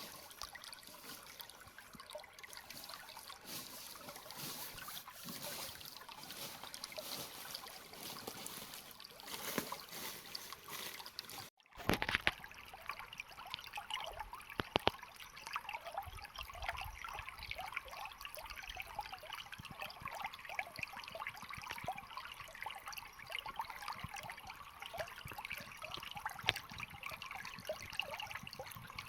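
Water trickling and babbling steadily, like a small stream. About twelve seconds in, the sound cuts out for a moment and resumes slightly different, with a few sharper splashes or knocks just after.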